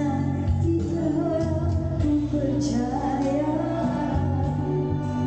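A woman singing live into a microphone over a pop backing track with a steady bass line, amplified through PA loudspeakers. Her voice holds long notes that slide from pitch to pitch.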